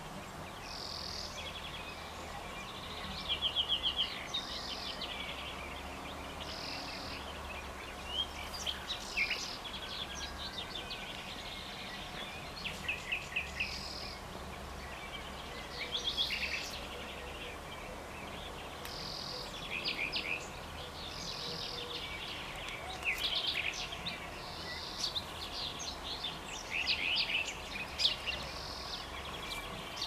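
Wild songbirds singing and chirping, with short repeated phrases and fast trills coming again and again, over a steady low rumble.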